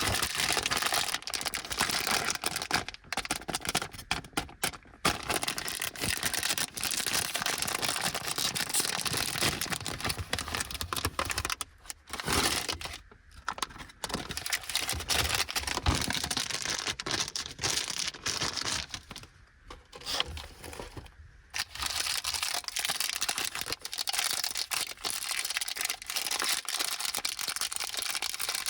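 Plastic wrappers of small bagged Fujiya Anpanman chocolates crinkling and being torn open by hand, with dense crackles and a few short pauses.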